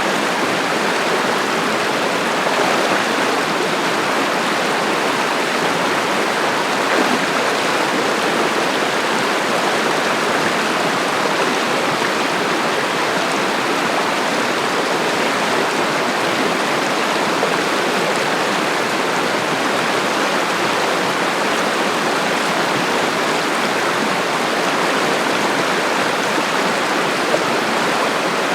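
Mountain river rushing steadily, an even, unbroken sound of flowing water.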